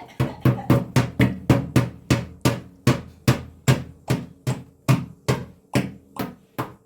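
A rapid, even series of sharp knocks or taps, about four a second, each with a low thud under it, slowing slightly toward the end.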